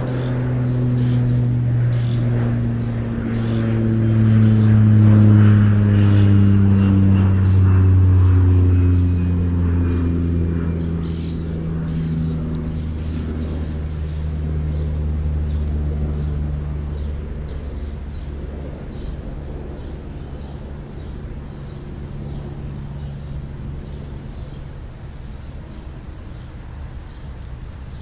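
A motor vehicle with a deep engine note passes by on a road. Its pitch slowly falls as it goes by, loudest a few seconds in and fading over the second half. Faint short ticks come about once a second near the start.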